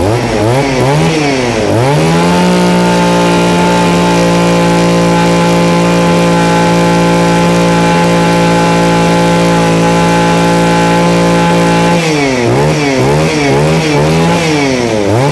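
Mitsubishi 23cc two-stroke brush cutter engine revved up and down a few times, then held at steady high throttle for about ten seconds, then blipped up and down again near the end. It sounds strong and punchy, a sign of an engine in good health.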